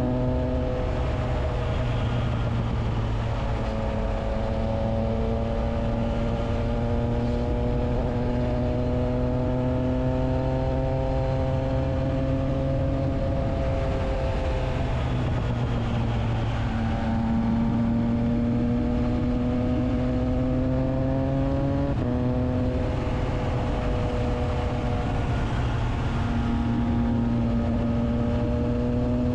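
Triumph Trident 660's inline three-cylinder engine breathing through a Spark exhaust with the dB killer fitted, running under way at steady revs. Its note drifts slowly up and down, with a quick drop in pitch at the start and again about twenty-two seconds in, like a gear change.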